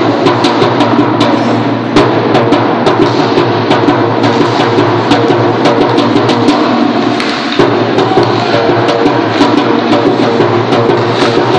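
Hockey sticks and puck clacking sharply and irregularly on the ice during play, many hits a second, over a steady low hum.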